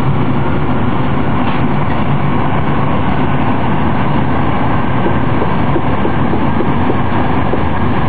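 Nuremberg U-Bahn DT1 train with three-phase AC drive running along the track, heard from the driver's cab: a steady, loud rumble of wheels and running gear with a low motor hum.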